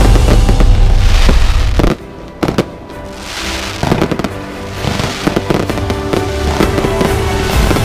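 Fireworks and firecrackers going off. A dense, loud barrage of bangs and crackle for about two seconds cuts off suddenly and gives way to scattered cracks and pops, with music playing underneath.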